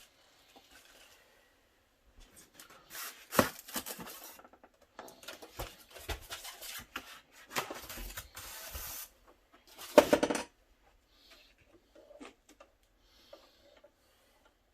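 Packaging rustling and crinkling as the sewing machine's foot pedal is unpacked, with scattered handling knocks and one loud thump about ten seconds in.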